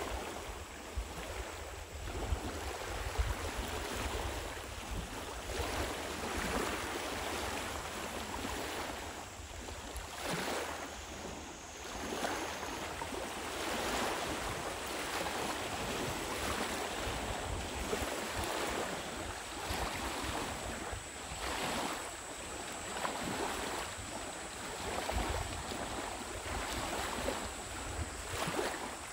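Small lake waves lapping at the shore in washes that swell and ease every couple of seconds, with wind rumbling on the microphone.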